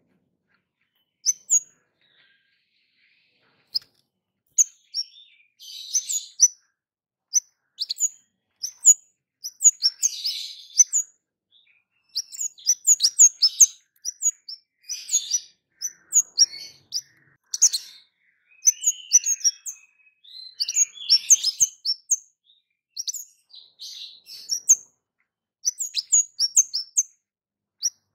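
A kemade songbird calling a quick string of sharp, high 'cit' chirps, with short runs of twittering between them.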